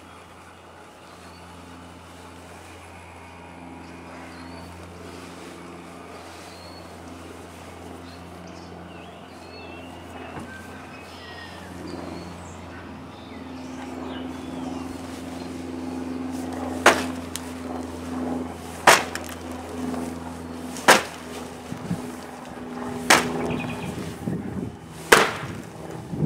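Steady low hum of the inflatable T-rex costume's blower fan. From about two-thirds of the way in, five sharp strikes about two seconds apart as a Green Dragon crescent blade chops at a styrofoam head on a small table.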